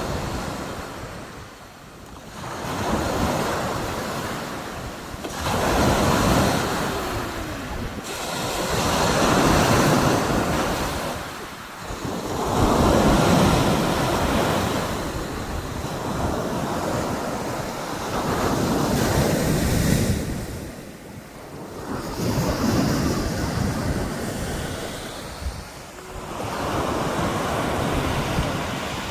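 Rough sea surf: waves breaking one after another, the rush of water swelling and falling back every few seconds, with wind buffeting the microphone.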